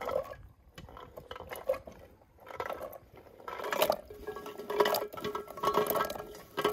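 Chestnuts sliding off an enamel basin and dropping into an aluminium pot of water: several bursts of clatter and splashing, busiest in the second half, with the metal ringing.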